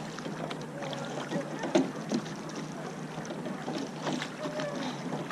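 Eight-oared rowing shell on the water while the crew backs it: scattered knocks of the oars in their oarlocks over a steady wash of water and wind, with faint voices in the background.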